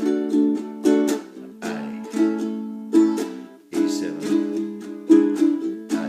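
Ukulele strummed in a calypso pattern (touch, roll, up, up, down, up). Chords ring between the strokes, with a stronger accent about once a second.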